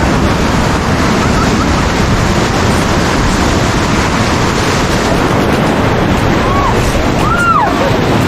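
Whitewater of a river rapid rushing and crashing around a paddle raft, loud and steady, with wind buffeting a helmet-mounted action camera's microphone. Two short rising-and-falling cries show faintly near the end.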